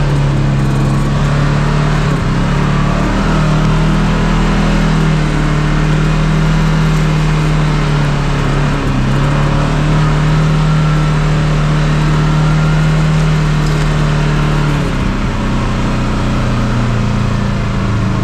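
Kawasaki KRX 1000 side-by-side's parallel-twin engine running steadily under light throttle as it drives along a dirt trail, its pitch dropping lower about fifteen seconds in.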